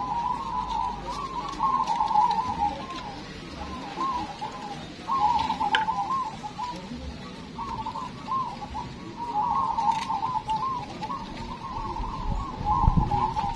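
Many caged zebra doves (perkutut) cooing at once, a dense overlapping chorus of rapid trilled coos with a short lull about three to five seconds in. A low rumble sounds near the end.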